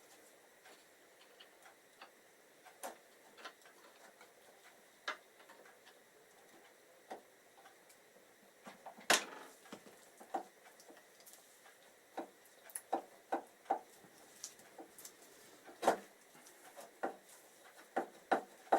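Scattered clicks and knocks of hand tools working on a motorcycle's front brake caliper, sparse at first and coming thicker from about halfway, with two sharper knocks, one about halfway and one near the end.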